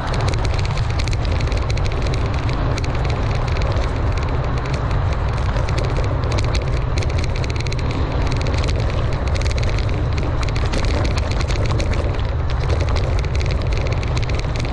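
Mountain bike riding over dirt singletrack: a steady low wind rumble on the action camera's microphone, with tyres crackling over dirt and grass and the bike rattling continuously.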